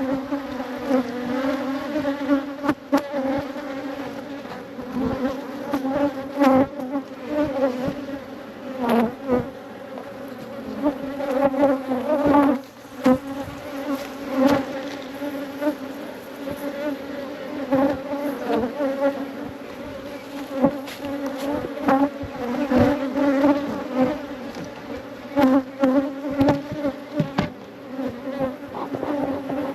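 Honeybees buzzing in numbers close by, a steady hum, with frequent short clicks and knocks throughout.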